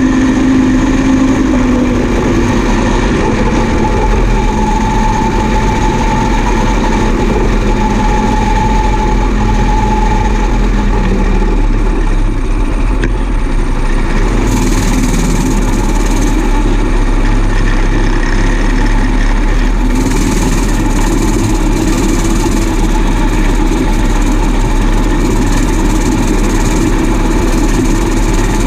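Combine harvester's engine and machinery running steadily, a loud, even drone with steady tones; a low tone fades out about two seconds in.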